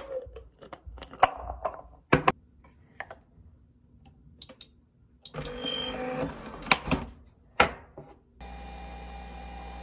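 Ice ball clinking against a ribbed glass tumbler, then the lid of a Nespresso Vertuo capsule machine being opened and snapped shut with a few sharp plastic clicks. About eight seconds in, the machine starts up with a steady, even hum as it begins brewing.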